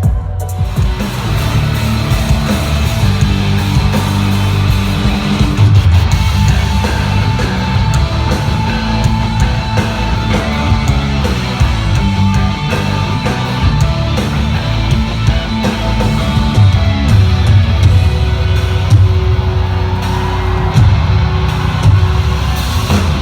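Live band playing loud, dense rock-style worship music, led by guitars over heavy bass and drums.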